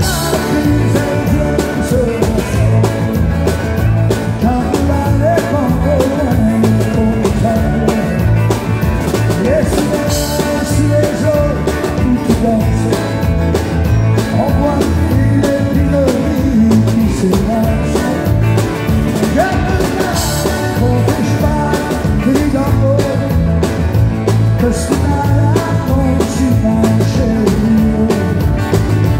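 A country band playing live: a male lead vocal singing over strummed acoustic guitar, electric bass and fiddle, with a steady beat.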